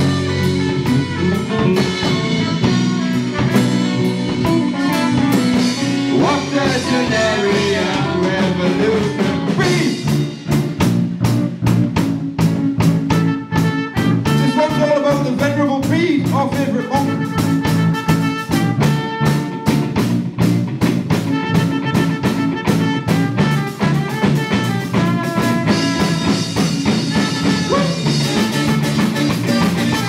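A live rock band playing a song, with a drum kit keeping a steady beat under singing and instruments.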